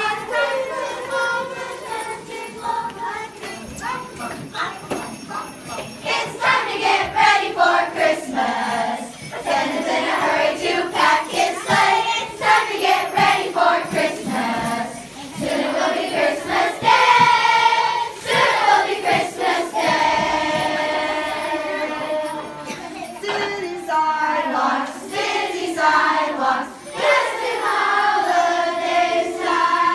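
A group of children singing a Christmas carol together, with sharp strokes keeping a steady beat under the voices.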